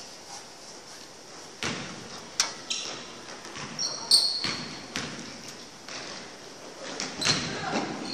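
Basketball game on a hardwood gym floor: the ball bouncing in sharp, separate thuds, with short high sneaker squeaks about four seconds in, all echoing in the large hall.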